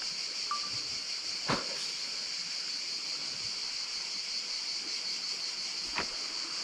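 Steady high-pitched outdoor hiss, with two short sharp clicks: one about a second and a half in, the other near the end.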